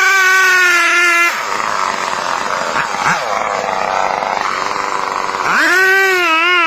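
Stihl chainsaw held at a steady high pitch, which breaks off about a second in into a rough, unpitched sound while it is cutting through wood. Near the end the pitch rises again and settles back to a steady high tone.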